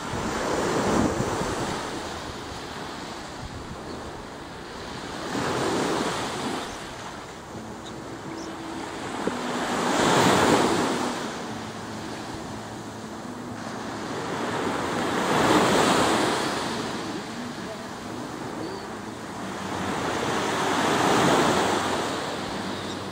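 Small ocean waves breaking on a beach, five in turn about every five seconds, each swelling up and washing away.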